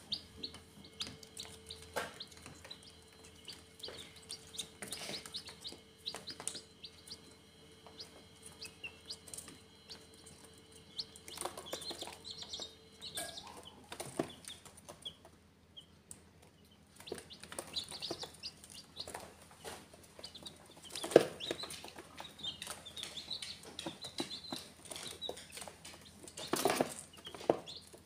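Baby chicks peeping in short high chirps, with many light clicks and taps as they scratch and peck on cardboard. There is a louder knock about three-quarters of the way through, and a cluster of knocks near the end.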